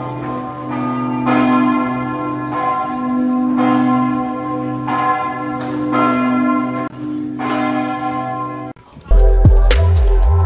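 Church bells ringing from a bell tower: a series of strikes about a second apart, the deep hum ringing on between them. Background music with a drum beat cuts in near the end.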